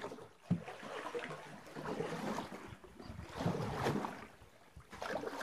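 Canoe paddle strokes pulling through river water, splashing and dripping in uneven swells, with a single sharp knock about half a second in.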